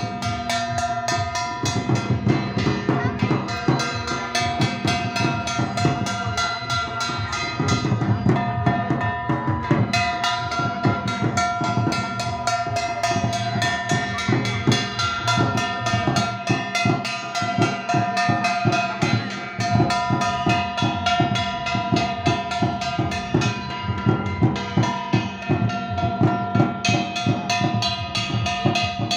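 Drumming in a fast, continuous rhythm, with a held melodic line sounding over the beat.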